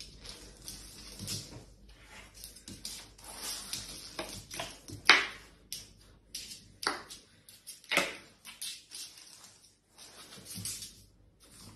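A Boston terrier moving about on a tile floor beside a metal trash can: soft scuffling with scattered light taps, and a few sharper knocks, the loudest about five seconds in, others near seven and eight seconds.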